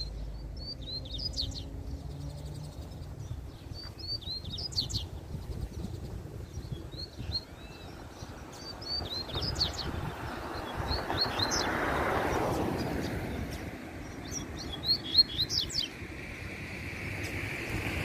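Double-collared seedeater (coleiro) singing: short bursts of quick, high chirping notes repeated every couple of seconds. A rushing noise swells and fades midway.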